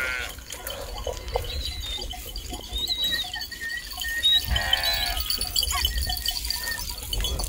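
Flock of sheep bleating, with one loud bleat about halfway through and fainter calls around it.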